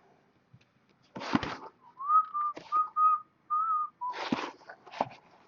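A person whistling a short tune of several brief notes, with brief rustling and knocks just before and after it.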